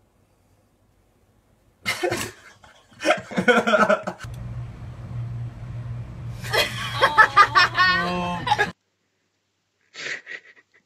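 Short bursts of people's voices without clear words, over a steady hum in the middle that cuts off abruptly, then one brief vocal burst near the end.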